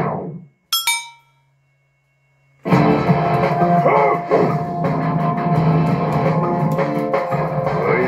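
Rock music with guitar and drums fades out. A single short bright chime rings just under a second in, then after about two seconds of near silence the music starts again at full level.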